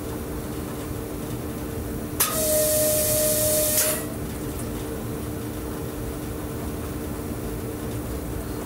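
Electric train running with a steady hum heard from the driver's cab. About two seconds in, a loud burst of compressed-air hiss, carrying one faint steady tone, lasts nearly two seconds and cuts off.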